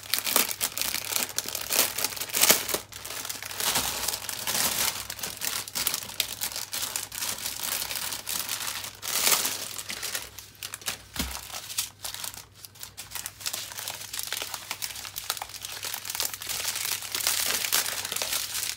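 Plastic packaging crinkling and rustling in irregular spurts as a plastic-wrapped bundle of small bags of diamond-painting drills is handled and unwrapped.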